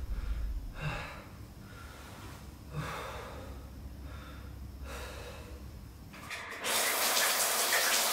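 A man breathing heavily, four long breaths about two seconds apart, over a low drone. About six and a half seconds in, a shower starts suddenly: a steady hiss of running water that becomes the loudest sound.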